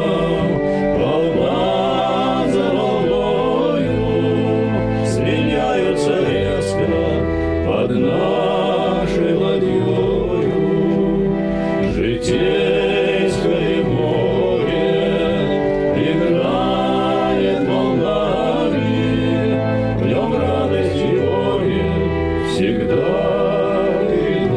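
Choir singing a slow piece with instrumental accompaniment, the voices holding long notes with vibrato over sustained low bass notes.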